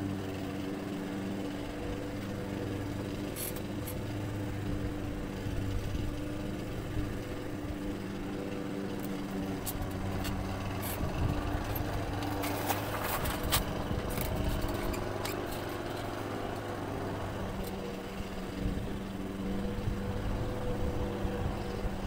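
A steady motor hum runs throughout. Between about 9 and 16 seconds in comes a cluster of sharp clicks and taps from hand-tool work on the motorhome's front.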